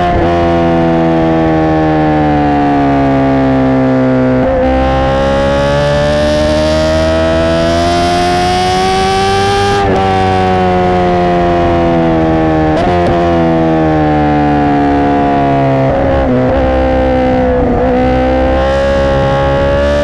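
Honda CBR1000RR SP1 inline-four through a Racefit Growler X exhaust, running at high revs under way. The note sinks slowly at first, climbs steadily for several seconds from about four seconds in, then eases back down, with a few brief breaks in the note along the way.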